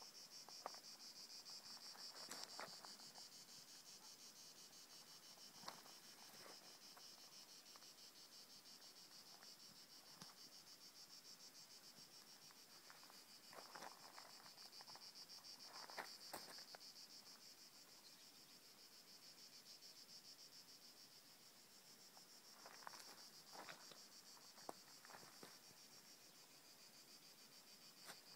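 Faint, steady chorus of insects chirring on a continuous high pitch, with a few soft clicks and rustles now and then.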